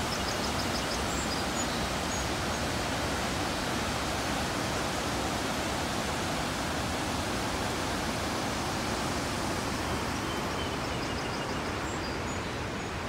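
Steady rushing roar of the Great Falls of the Passaic River pouring over its rock ledge, a little quieter near the end.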